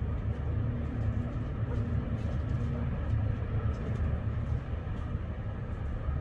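Steady low outdoor rumble, even throughout, with a faint hum in the first half and no bangs.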